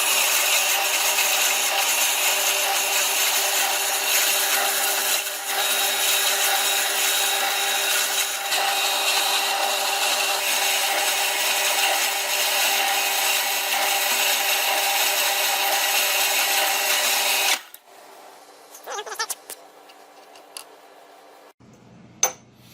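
Stationary shop power tool working a piece of aluminum, running steadily and loud, then cutting out about 17 seconds in, leaving a fainter hum for a few seconds.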